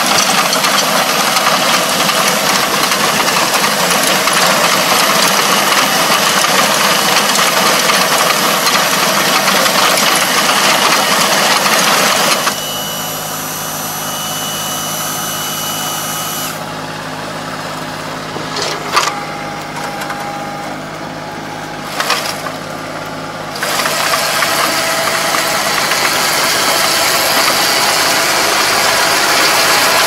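Farm machine's engine running steadily with a mechanical clatter. About twelve seconds in the sound drops to a quieter, thinner running with a couple of sharp clicks. The fuller running returns about halfway through.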